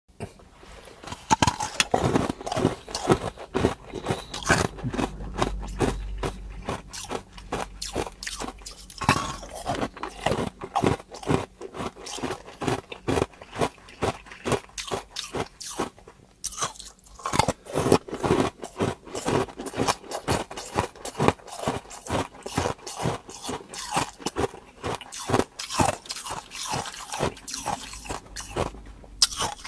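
A person biting and chewing hard ice cubes close to the microphone: rapid, sharp crunching and cracking as the ice breaks between the teeth, with a brief pause about halfway through.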